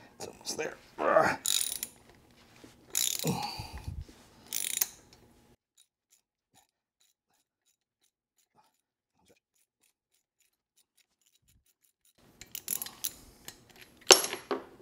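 Ratchet wrench and socket backing a rusted steel exhaust stud out of an aluminum Harley-Davidson Sportster cylinder head, in bursts of ratcheting over the first five seconds. A pause of about seven seconds follows, then more ratcheting near the end as the stud comes out.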